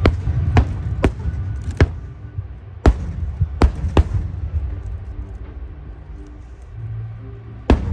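Aerial fireworks bursting: about eight sharp booms at irregular intervals over a continuous low rumble, with a gap of a few seconds before a last bang near the end.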